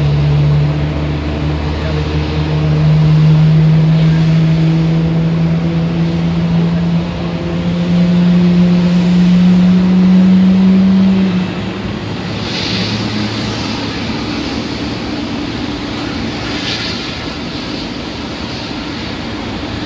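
Vehicle engine drone, slowly rising in pitch and stopping about eleven seconds in. A lower steady rumble follows, with two brief hisses.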